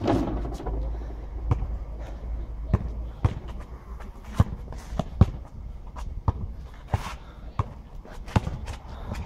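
A basketball bouncing on an asphalt court as players dribble, sharp separate bounces about twice a second at an uneven pace. There is a louder impact at the very start as a shot meets the rim.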